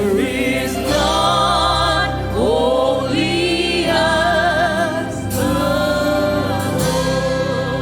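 Gospel worship song: long sung notes with vibrato over steady instrumental backing.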